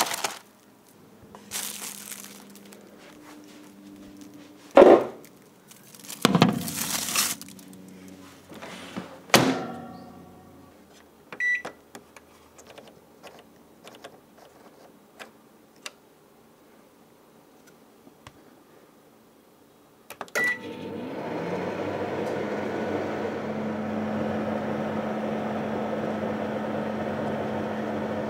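Toshiba microwave oven being loaded and started: a few heavy clunks of the door and bowl, a short beep, faint clicks as the dial is turned, a second beep, and then, about two-thirds of the way in, the oven starts running with a steady hum.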